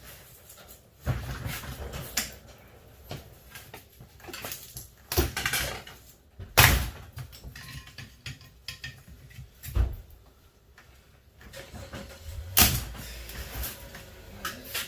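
Irregular metal clanks, scrapes and knocks from a dishwasher being pried and pulled apart by hand for scrap, with a few sharper knocks, the loudest about six and a half and twelve and a half seconds in.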